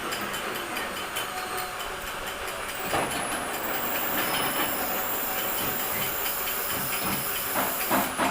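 A metal lathe running steadily with a hiss, with a sharp knock about three seconds in and a couple more near the end.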